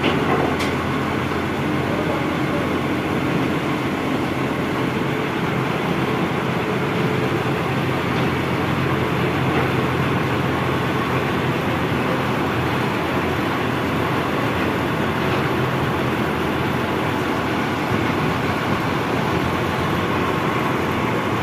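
Swaraj 8100 combine harvester's diesel engine running steadily at idle.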